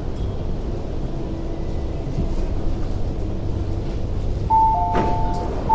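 Low, steady rumble inside an MTR SP1900 (IKK-train) car at a station stop. Near the end there is a click and a two-tone door chime that sounds and starts again: the signal that the doors are opening.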